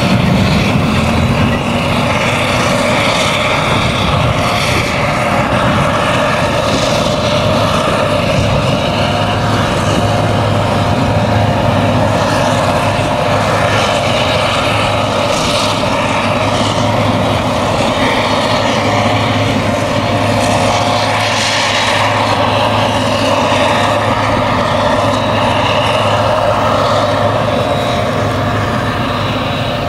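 Claas Jaguar 970 self-propelled forage harvester running under load, chopping whole-crop triticale and blowing it through its spout into a trailer, with the tractors hauling the trailers running alongside. A steady engine drone with a low hum and a rushing hiss, a little louder in the first couple of seconds as a tractor and trailer pass close.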